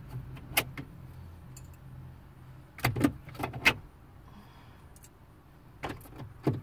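Hard plastic clicks and knocks from a Saturn L-series radio bezel's retaining clips being worked by hand: one click about half a second in, a quick run of four about three seconds in, and two more near the end. A low hum underneath fades out a couple of seconds in.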